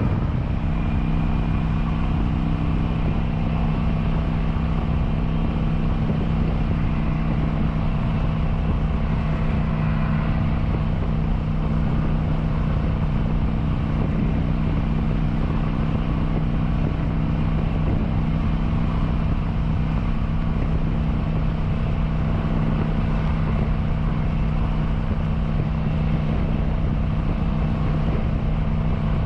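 Kawasaki Vulcan 900's V-twin engine running steadily at a constant cruising speed, under an even rush of wind and road noise.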